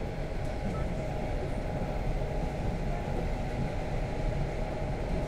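Cabin noise of an ED4M electric multiple unit running at speed: a steady low rumble of wheels on track with a constant thin whine above it.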